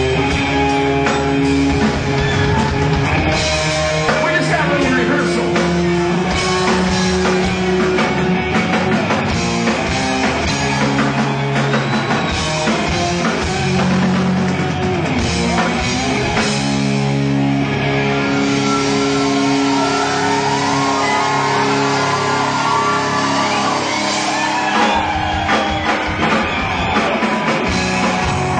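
Live rock band playing, with electric guitar over drums and bass. Gliding guitar lines run through it, strongest in the second half.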